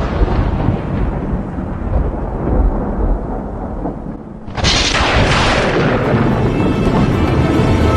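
Thunderstorm sound effect in a dance routine's music track: a low rumbling thunder that fades about four seconds in, then a sudden loud crack of thunder that rolls on and slowly dies away.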